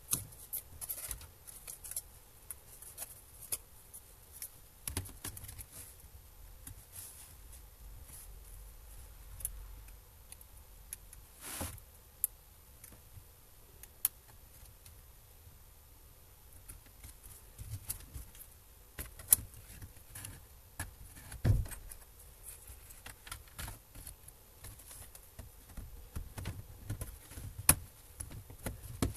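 Hands and small tools working on an Acer Aspire V3 laptop during disassembly: irregular small clicks, taps and light scrapes of plastic parts and screws. A louder knock comes about twelve seconds in and another about twenty-one seconds in.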